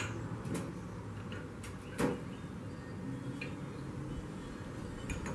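A few sharp clicks and clinks of steel pliers against a glass jar while a drill bit is fished out of the jar, the loudest about two seconds in, over a low steady hum.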